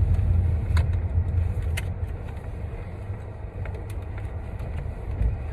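Car interior noise while driving: a steady low road and engine rumble that eases off about halfway through, with a few short clicks.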